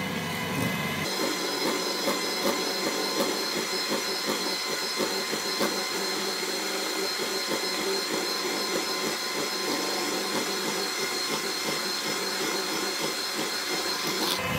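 Electric hand mixer running steadily with a constant whine, its beaters whipping cream cheese, condensed milk and whipping cream in a bowl until the mix thickens for a mousse.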